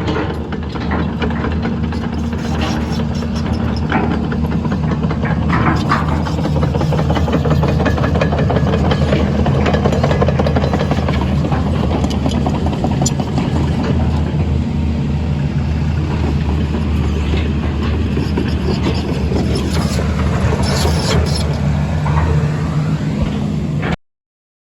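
JCB excavator's diesel engine running steadily under work, then cutting off suddenly near the end.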